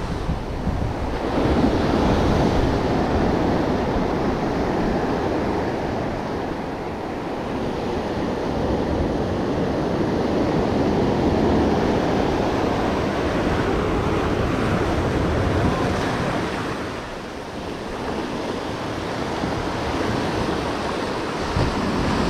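Ocean surf breaking and washing over a rocky jetty, swelling and ebbing as each wave comes in, with wind buffeting the microphone.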